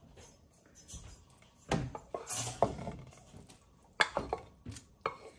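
Cookware clattering and clinking: a pan of par-cooked rice is tipped and knocked against the rim of an enamelled cast-iron pot. There is a clatter about two seconds in and a cluster of sharp knocks near the end.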